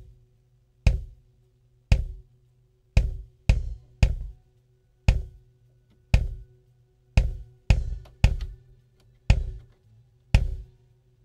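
Close-miked kick drum track playing back on its own: single beats about once a second, with the odd quick double hit, each dying away before the next. A narrow EQ cut around 1.1 kHz is being dialed in on the channel to tame the drum's nasal upper-mid tone.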